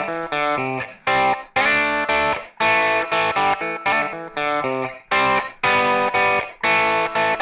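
Background music: electric guitar with distortion and effects playing short chord phrases separated by brief breaks.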